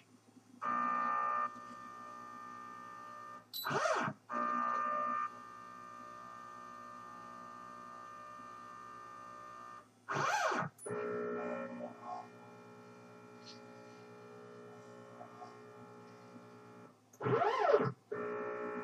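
NEMA 23 stepper motors of a CNC 6040 router, driven by a Gecko G540, moving the axes through an automatic corner-finding probe routine: a steady pitched whine as the axes creep toward the touch plate. Three times, near 4, 10 and 17 seconds, it breaks into a quick, loudest sweep down and back up in pitch as an axis stops and reverses.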